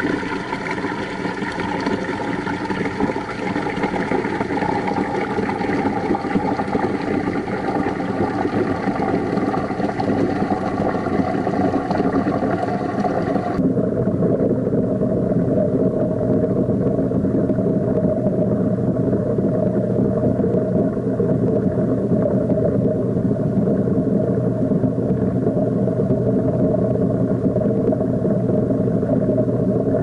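Washing machine running, heard from a camera submerged in the tub among the laundry: a steady, muffled mechanical hum. About fourteen seconds in, the sound abruptly turns duller, its higher part cut off.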